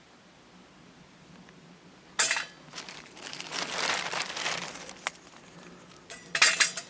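Small metal twig stove and its kindling being handled: a sharp clink about two seconds in, a rustle lasting a second or two, then a quick run of metallic clinks near the end.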